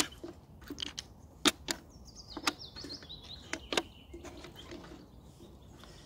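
Draughts pieces set down one after another on a wooden board, making a series of short, sharp clicks in the first four seconds. A bird calls faintly in a high, wavering line about two seconds in.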